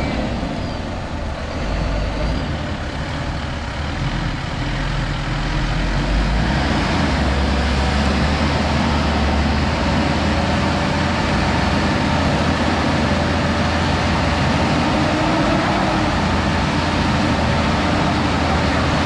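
Engines of a pickup truck and a bus running hard in deep mud, the bus's wheels spinning. The engine rumble grows louder about six seconds in and then holds steady.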